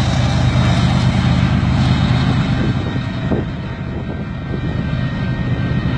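Diesel locomotives of a freight train running away down the line: a steady low rumble and hum with rushing rail noise over it, easing off a little about midway through.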